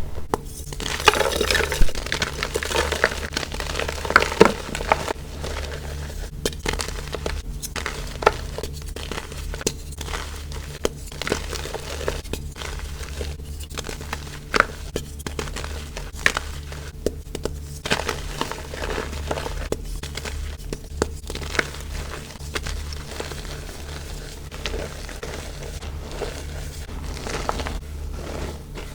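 Compressed baking soda crumbling and being crushed: a dense, irregular run of crisp, snowy crunches and crackles, heaviest in the first few seconds, over a steady low hum.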